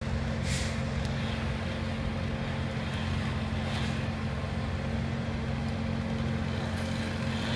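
Vehicle engine idling steadily, a constant low hum that does not change pitch, with two faint short hisses about half a second and about four seconds in.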